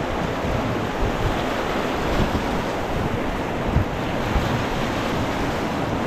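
Rushing whitewater of a river rapid, a steady loud wash, with wind buffeting the microphone in uneven low thumps.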